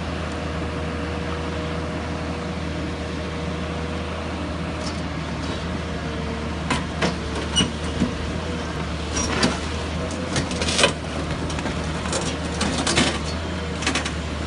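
Excavator's diesel engine running steadily while its hydraulic concrete-crusher attachment bites into a reinforced-concrete slab. From about halfway on there is a series of sharp cracks and snaps as the concrete breaks apart.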